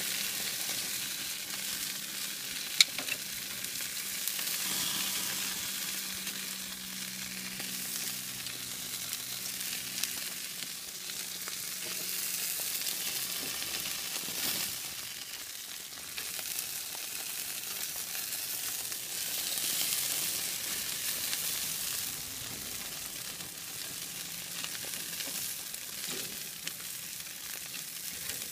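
Chicken pieces glazed in BBQ sauce sizzling on a grill grate: a steady hiss with small crackles. A single sharp click, the loudest sound, comes about three seconds in.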